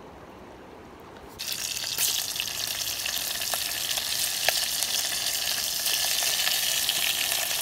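Dried salted fish (ikan asin) frying in hot oil in a metal pot: a loud, steady sizzle with scattered pops, starting abruptly about a second and a half in.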